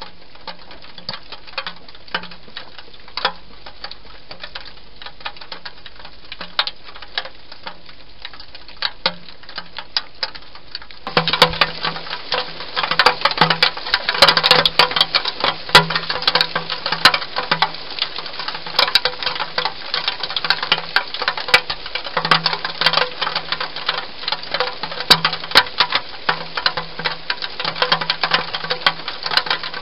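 Wild hedgehog eating at dishes inside a plastic feeding box: rapid, irregular crunching and lip-smacking clicks, much louder from about eleven seconds in.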